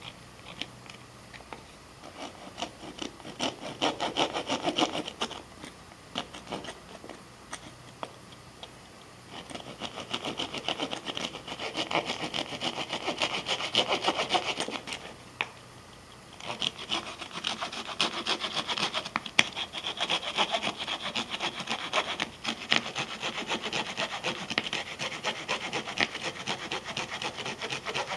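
Leatherman Surge multitool's wood-saw blade sawing through a small log in quick back-and-forth strokes, in three spells with short pauses between.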